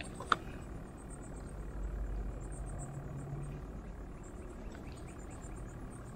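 A single sharp click about a third of a second in, a spinning reel's bail snapping shut just after a cast, followed by a low, steady outdoor background rumble with faint high ticking.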